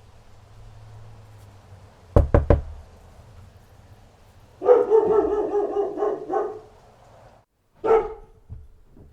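A dog barking: a drawn-out, wavering bark of about two seconds, then one short bark near the end. Three quick knocks come about two seconds in, before the barking.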